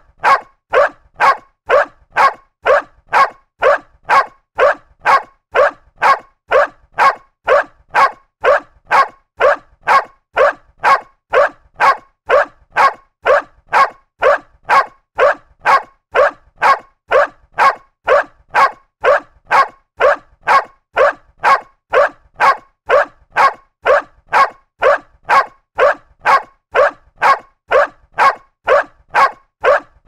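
A dog barking in a steady, evenly spaced run of single barks, a little under two a second, all of the same strength.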